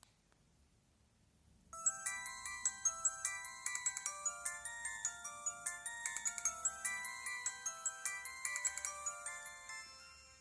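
A ringtone-style melody of quick, short high notes, several a second, stepping up and down in pitch. It starts after about two seconds of near quiet and fades out near the end.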